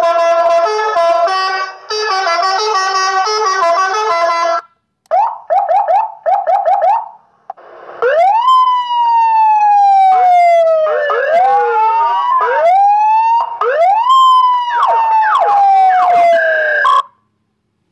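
Homemade electronic horn-and-siren module through a horn loudspeaker: a telolet horn melody of stepped tones that cuts off about four and a half seconds in, then a quick run of short chirps, then an electronic siren sweeping up sharply and falling slowly, over and over with overlapping sweeps, until it stops shortly before the end.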